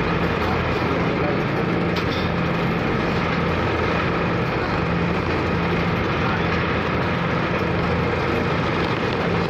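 Car ferry's engine running steadily under a constant rush of wind and water noise, with a low hum that pulses at an even rhythm.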